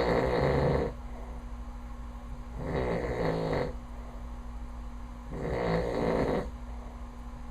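A sleeping man snoring loudly, one snore about every 2.7 seconds, each lasting about a second.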